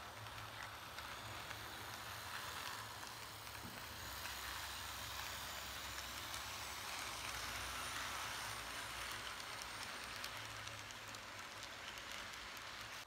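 Model train running past at close range: a steady whirring of the locomotive's electric motor and gears and the wheels on the rails, with scattered light clicks and a low hum underneath. It swells a little as the train passes close.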